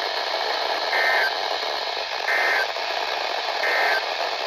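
Three short bursts of Emergency Alert System end-of-message data tones, the warbling SAME code, about a second apart. They sound over steady radio static hiss and mark the end of the alert.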